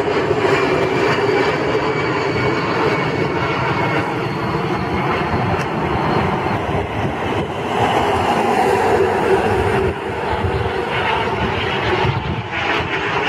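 Steady roar of jet engines from aircraft climbing out overhead: first a twin-engine airliner, then a small twin-engine business jet, with the sound changing about eight seconds in.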